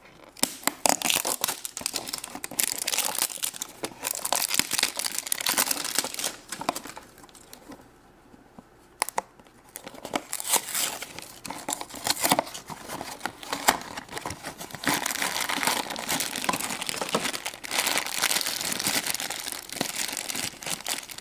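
Blind-box toy packaging being crinkled and torn open by hand, with a brief lull about two-thirds of the way through and a single sharp click.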